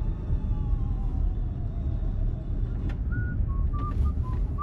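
Vehicle driving slowly over a bumpy dirt road: a steady low rumble of tyres and engine. Faint high tones run over it, a slow falling glide early and then a few short high notes in the last second or so.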